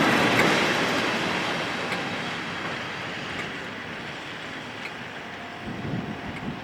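Train rolling past on the rails, its noise loudest at the start and fading steadily as it moves away.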